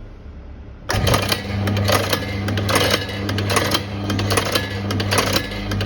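THDP5 single-punch tablet press starting about a second in and running without load: a steady electric motor hum with rapid repeated clacking from the punch mechanism.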